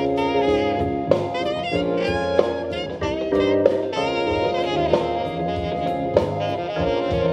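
Live jazz band playing a saxophone-led horn line over a drum kit, with sharp accented drum hits about every second and a quarter.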